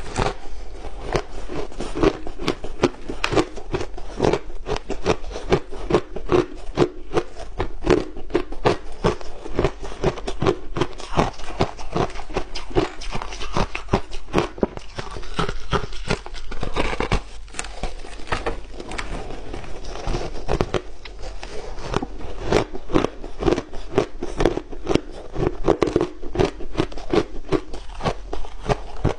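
Crushed ice being bitten and chewed, a dense, continuous run of crisp crunches and crackles.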